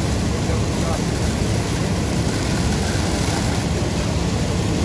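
Steady low rumble of heavy truck engines running, with an even noisy hiss over it.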